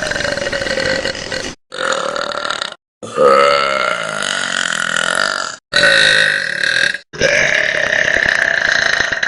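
Five long, drawn-out burps by girls, played back to back, each cut off abruptly before the next begins. The first runs on to about a second and a half in. The others last roughly one to two and a half seconds each, and the one about three seconds in is the loudest.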